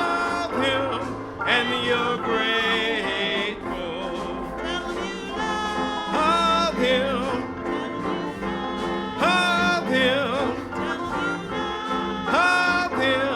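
Gospel song: a singer holding and bending long notes with a wavering vibrato over steady instrumental accompaniment.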